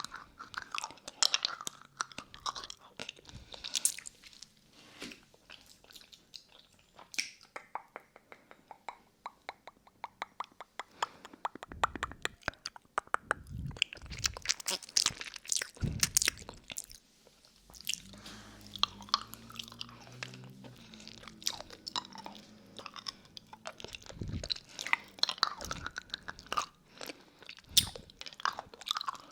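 Close-miked, wet mouth sounds of a lollipop being sucked and licked: rapid, irregular sharp clicks, smacks and crunchy snaps, recorded on a binaural 3Dio microphone.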